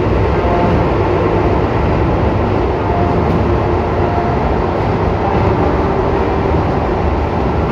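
Keisei train running on the Chihara Line, heard from inside the passenger car: a steady rumble of wheels on rail with a few faint short whines.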